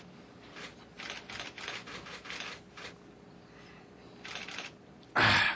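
Camera shutters clicking in quick runs, with a louder short burst of noise near the end.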